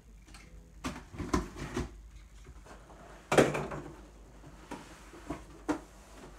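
Cardboard shipping box being opened: packing tape torn off and the flaps pulled apart. There are several rips and knocks about a second in, the loudest and longest tear just past three seconds, then a few light taps on the cardboard.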